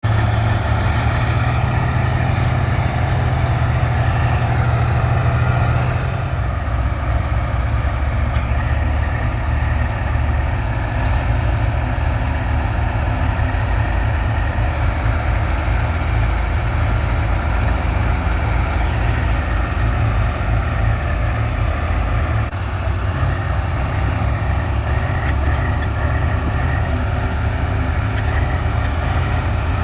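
Swaraj tractor's diesel engine running steadily, its note changing about six seconds in and dipping briefly past twenty seconds.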